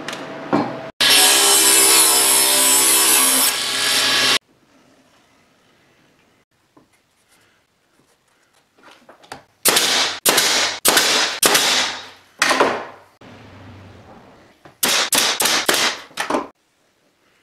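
Table saw ripping a pine board for about three seconds, then cutting off suddenly. After a pause, a pneumatic nailer fires in two runs of sharp shots, each with a short hiss, as pine boards are nailed together. The first run is five slower shots and the second a quicker run of five or six.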